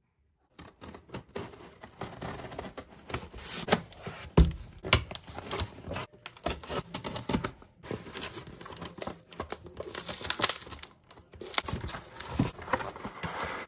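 A plastic poly mailer and a cardboard box being torn and opened by hand. Crinkling plastic and rustling, scraping cardboard flaps come with sharp rips and knocks. It starts about half a second in, and the loudest rips come about four seconds in.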